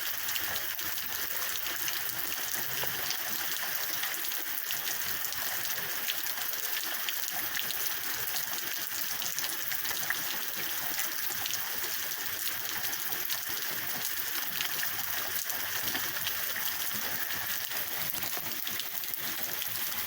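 Heavy rain pouring down in a tropical-storm downpour: a steady hiss of rainfall dotted with the close patter of individual drops striking nearby surfaces.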